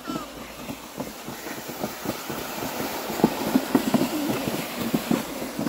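Plastic sled being pulled over packed snow: a continuous scraping rumble with irregular bumps and knocks, getting louder about halfway through.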